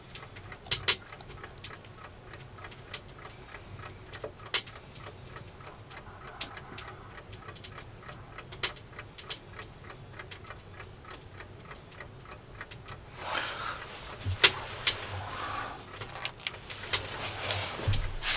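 Sharp, irregular clicks and crackles, with fainter ticking underneath. Near the end there is a stretch of rustling movement and a couple of low thuds.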